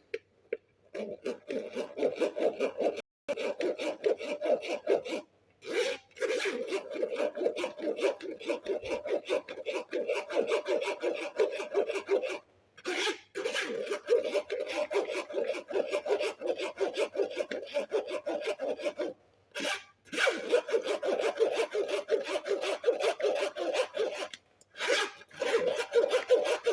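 Continuous rasping, scraping rub during food preparation, in stretches of a few seconds broken off abruptly several times.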